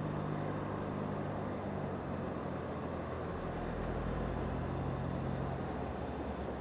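Cessna 172's piston engine running steadily at low power, its tone shifting slightly a couple of times.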